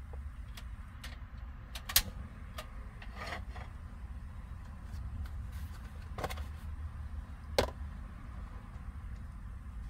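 A few sharp clicks and knocks, several seconds apart, with some rustling, from cooking gear and a plastic food package being handled at a camp stove, over a steady low hum.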